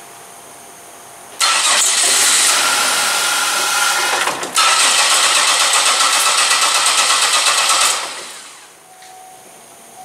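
2003 Chevy Impala's 3.8-litre V6 cranking on the starter without starting, in two stretches of about three seconds each with a brief break between them. It cranks but won't fire because the engine computer is not powering the fuel pump relay, so the fuel pump never runs.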